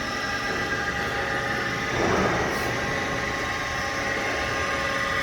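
Wells Index 3-axis CNC mill running a program: a steady machine hum with several constant whining tones, and a brief louder rush of noise about two seconds in.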